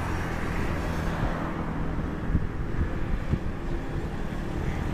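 Twin turbofan engines of a Boeing 767-300 at takeoff power as it climbs away, a steady, loud low rumble.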